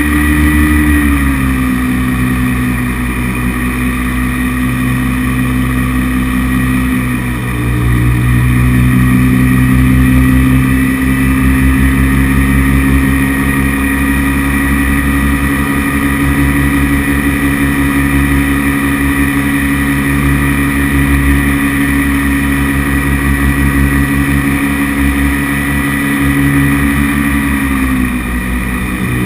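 Paramotor engine and propeller running steadily under power, heard close up from on board. The pitch eases down about a second in, dips briefly around seven seconds before picking up again, and drops as the throttle is pulled back near the end.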